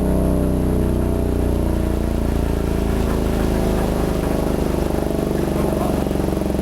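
Chrysler air raid siren running, its 331 Hemi V8 engine rumbling under the siren's low, steady, organ-like tone.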